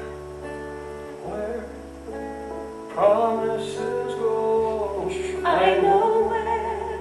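Live music from a rock band, with guitar over a steady bass and a voice holding long sung notes.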